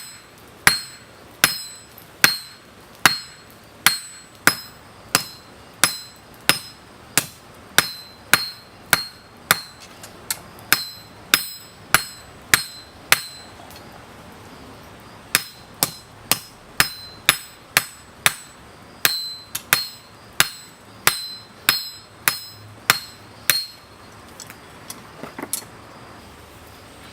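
Hand hammer striking hot steel on an anvil while forging, each blow with a high ringing note from the anvil, about three blows every two seconds. There is a short pause about halfway, and the hammering stops a few seconds before the end.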